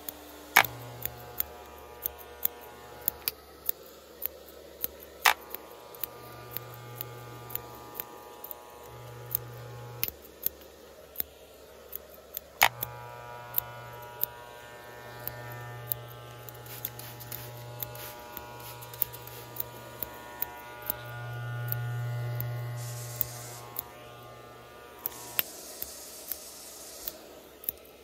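Electric hair clippers buzzing in on-and-off stretches of one to a few seconds, loudest about three-quarters of the way through, with sharp clicks scattered throughout.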